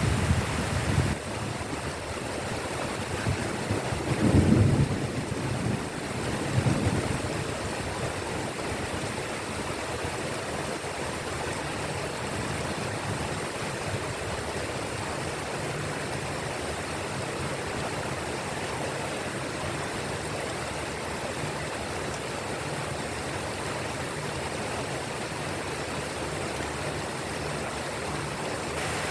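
Steady hiss of falling rain, with two brief low rumbles about four and six and a half seconds in.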